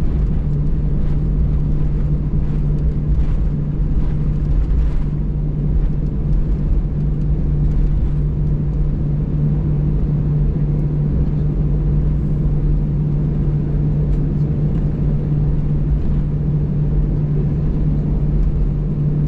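Steady cabin noise of an Airbus A320 taxiing after landing: engine and cabin hum with a constant low drone and a deep rumble.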